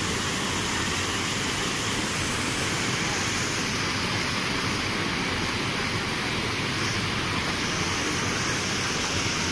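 Water rushing steadily over a concrete weir and gushing out through openings in its wall.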